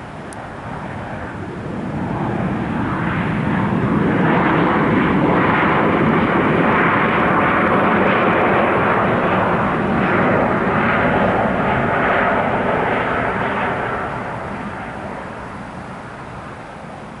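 Airliner's engines roaring as the plane passes close by: the sound swells over a few seconds, stays loud for about ten seconds, then fades away.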